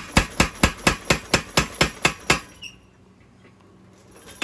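Power hammer striking hot Damascus steel in an even run of blows, about four a second, while the tang is drawn out and tapered. About halfway through the blows stop for nearly two seconds, then start again at the very end.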